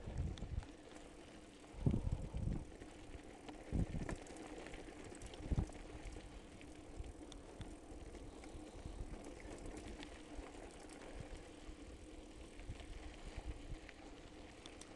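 Mountain bike rolling downhill on a rough gravel track, heard from a camera mounted on the bike: a steady whir and rattle with dull jolts from bumps about two, four and five and a half seconds in.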